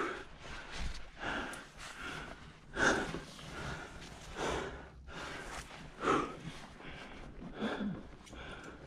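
A climber breathing hard with effort, short audible breaths about every second and a half, while working up a rock chimney with a pack on.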